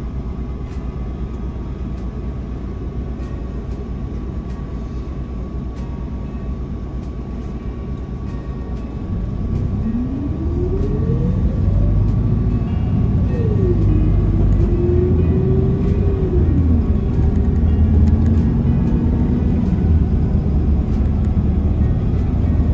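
Bus diesel engine running at low idle, heard from inside the cabin; about nine seconds in it grows louder and its whine rises steeply in pitch as the bus pulls away, then drops back twice as the gearbox changes up.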